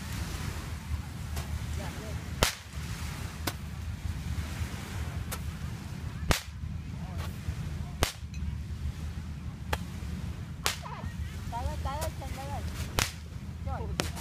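Small fireworks going off in sharp, single cracks, one every second or two at uneven intervals, over a steady low rumble.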